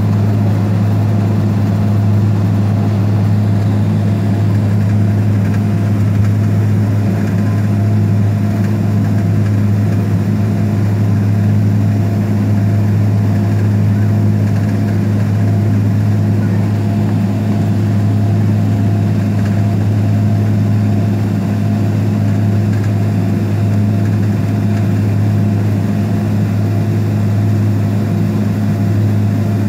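Airliner cabin noise while taxiing after landing: the engines' steady low drone with a strong low hum.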